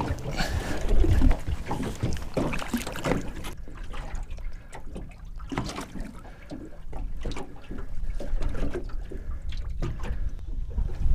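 Water splashing and sloshing against a small boat, with irregular knocks and handling noises, over a low wind rumble on the microphone.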